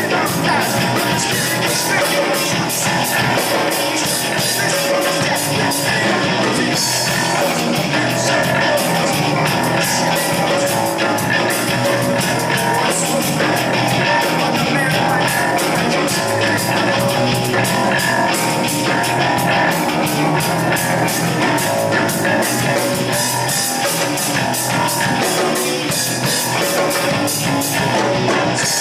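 Live rock band playing loud distorted guitar with a drum kit, heavy on cymbals, through a poor, harsh recording.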